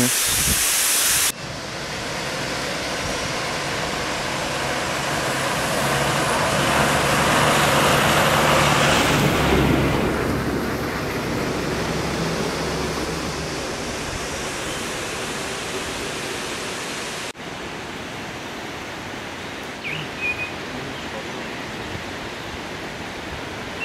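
Steady rushing noise of a vehicle driving on a wet road, with a low engine hum under it that builds and then fades. After a cut, a steadier, softer rush of falling water, with a couple of short bird chirps near the end.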